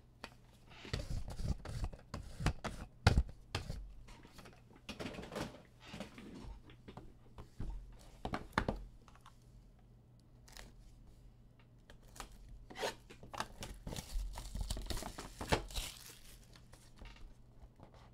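Plastic wrapping being torn and crinkled off a trading-card box, in irregular rips and crackles, the sharpest about three seconds in, with a short lull near the middle.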